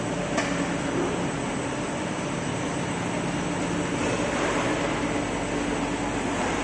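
Fiberglass mesh production machinery running: a steady mechanical whir and hum of rollers and drives, with one sharp click about half a second in.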